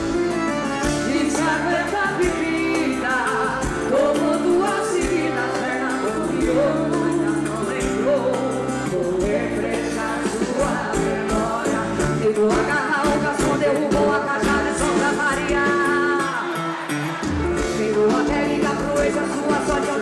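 Music: a song with a singing voice over a backing band.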